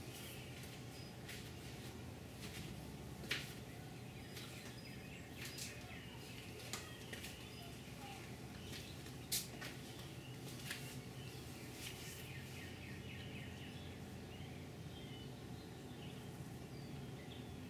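Faint, steady low background hum with a few short, sharp high-pitched chirps or ticks scattered every few seconds.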